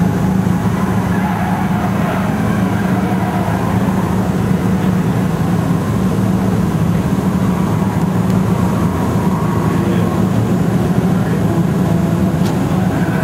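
A car engine idling close by, a steady low drone that holds level throughout.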